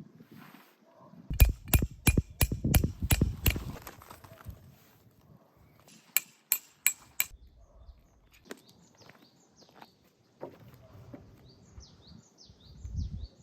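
A hammer driving metal tent pegs: about eight sharp, ringing strikes at about three a second, then four more a few seconds later. Short falling bird chirps come near the end.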